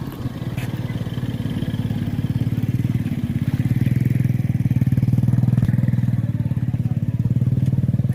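Motorcycle engine running close by with a fast, even pulse, growing louder over the first few seconds and then holding steady.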